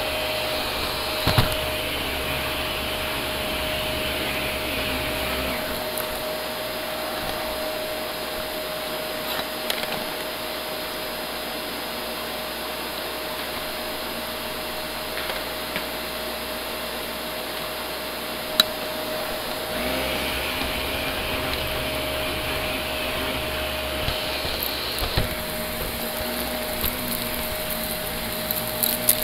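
Shark Navigator upright vacuum cleaner running continuously with a steady motor whine. Its airflow hiss swells twice for a few seconds as the head is pushed across tile and shag rug. A few short sharp clicks stand out over the motor.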